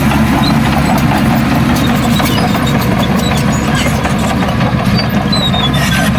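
Heavy diesel earthmoving machinery engine running steadily, with scattered clicks and clatter over it.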